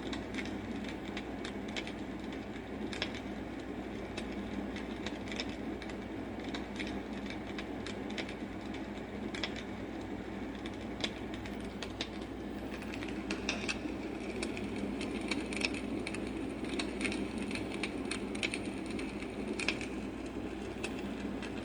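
Sound machine playing its campfire setting: a steady low rush with irregular crackles and pops.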